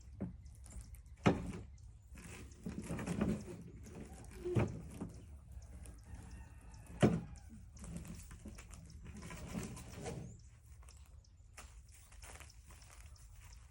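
Three sharp knocks, a few seconds apart, between stretches of scraping and rustling, like things being handled and moved about.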